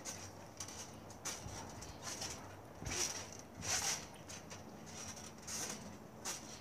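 Someone jumping on a garden trampoline: the mat and springs sound with each bounce, a short, sharp sound about once a second. The loudest two come about three and four seconds in.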